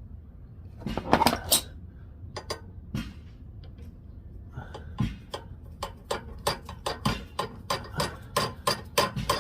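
Hand tools clicking and clinking against metal while screws are fastened on a snowblower carburetor. There is a loud cluster of clinks about a second in, then an even run of sharp clicks, about three a second, from the middle on.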